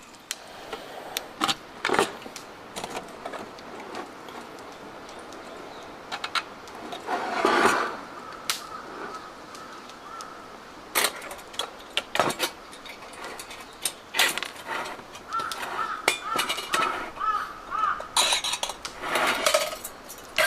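Scattered clinks and knocks of camp cookware and utensils being handled, with a longer rustling swell about seven seconds in.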